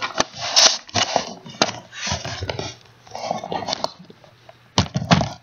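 A bulldog's short, breathy snuffles, repeated a dozen or so times.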